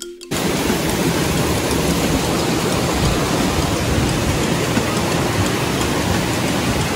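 Steady rushing-water noise, like a cascade close by, starting abruptly about a third of a second in and holding level throughout.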